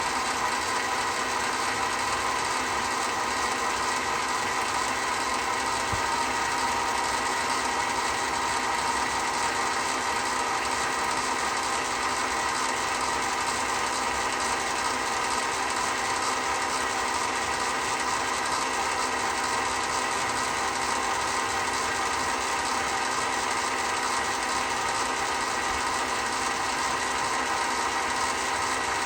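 Chinese mini lathe running at a steady speed, a constant mechanical whine made up of several even tones that does not change.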